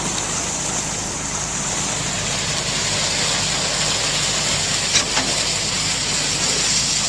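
Heavy truck diesel engine running steadily during a concrete pour, with one short knock about five seconds in.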